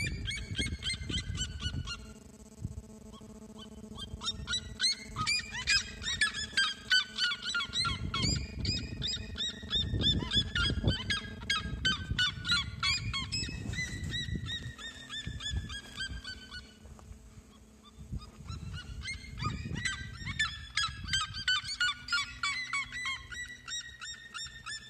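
Red-legged seriemas calling: rapid series of short, loud notes, each run falling in pitch. The calls come in three bouts: one fading out about two seconds in, a long one from about four to sixteen seconds, and another from about nineteen seconds on.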